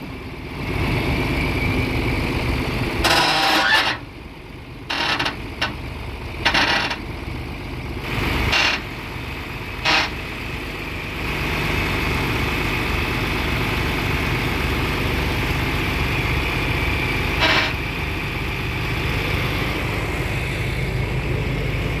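Farm tractor engine running under load as its front-end loader pushes a combine header along a trailer deck, with several sharp metal knocks in the first half and one more later. The engine gets louder and steadier about halfway through.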